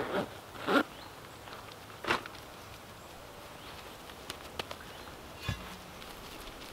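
A few short, scattered handling noises, rustles and light knocks, with a low thump about five and a half seconds in, over a quiet outdoor background.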